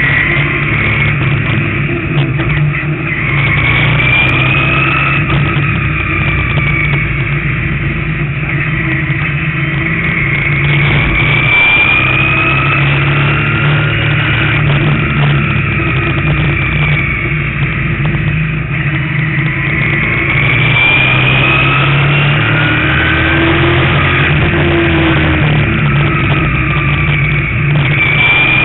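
Street stock race car's engine running hard on board, its pitch rising as it accelerates out of each turn and dropping as the driver lifts off, in a cycle about every seven to eight seconds.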